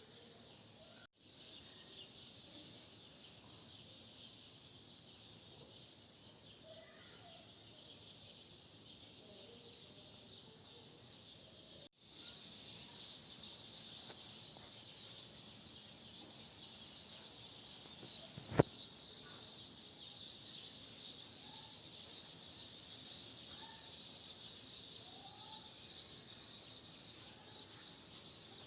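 Faint outdoor ambience: a steady high chirring of insects with scattered bird chirps. The sound briefly cuts out twice, about a second in and again near the middle, and is a little louder after the second cut. There is a single sharp click about two-thirds of the way through.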